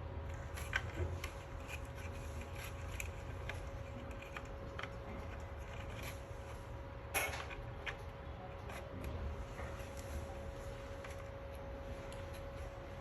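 Scattered light clicks and scrapes of small tools and parts being handled, over a steady electrical hum; the sharpest click comes about seven seconds in.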